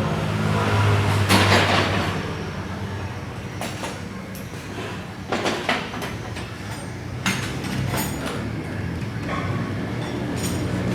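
A steady low mechanical hum with scattered metallic knocks and clanks on top of it, several of them close together about five and a half and seven to eight seconds in.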